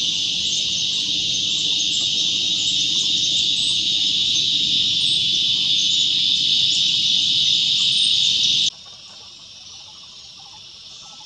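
A steady, loud drone of forest insects. It cuts off abruptly near the end, leaving a much quieter forest background.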